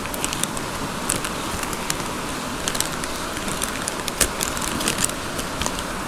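Steady rush of a mountain stream, with scattered crinkling crackles from a foil pouch of instant cappuccino powder being handled and opened.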